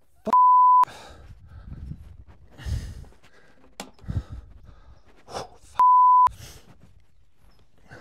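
Censor bleep: a loud, steady, single-pitch beep of about half a second, sounded twice, just after the start and again about six seconds in, blanking out swearing after an electric shock. Faint breaths and mutters in between.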